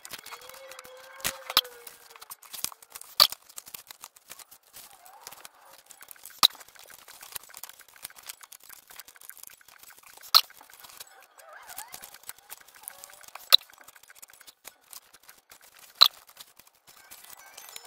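Sharp clicks and snaps, roughly one every three seconds, from punched pages and covers being pressed onto and pulled off the plastic discs of discbound notebooks. Faint voices sound in the background.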